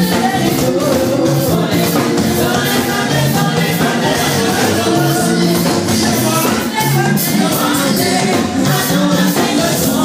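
Church choir singing through a microphone with musical accompaniment and a steady beat.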